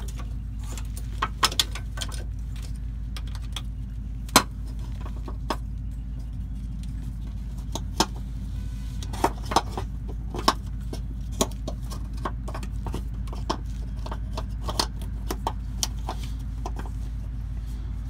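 Irregular sharp clicks and knocks of a hand working plastic connectors and fittings at a diesel pickup's fuel filters and lift pump, the loudest about four seconds in, over a steady low hum.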